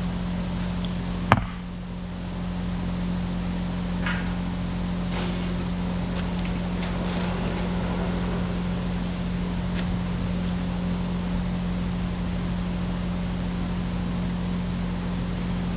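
Excavator's diesel engine running steadily, with one sharp click about a second in.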